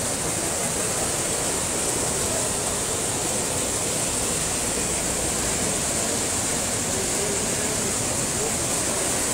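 Brown floodwater rushing and churning through a concrete drainage channel and spilling over small weirs: a steady, loud rush of water.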